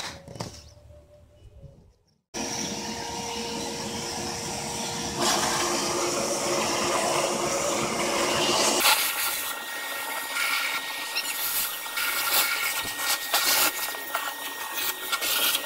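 Vacuum cleaner running with a steady hum, sucking up dust from a freshly cut hole in fiberglass. It starts about two seconds in, and its tone shifts twice as it goes.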